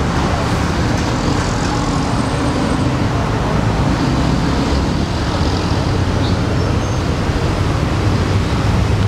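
Steady road traffic noise, with a low engine hum coming up near the end.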